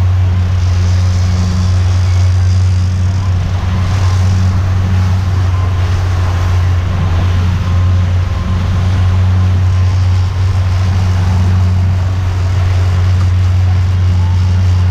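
Boat engine running steadily: a loud, even low drone under a haze of wind and water noise.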